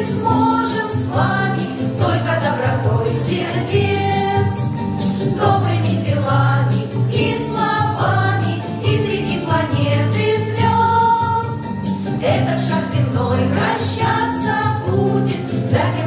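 A small choir, mostly women's voices, singing a song with instrumental accompaniment underneath.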